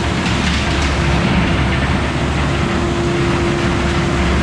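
Farm machinery bedding cattle pens with baled corn stalks, running steadily: a low engine rumble under a steady mid-pitched whine.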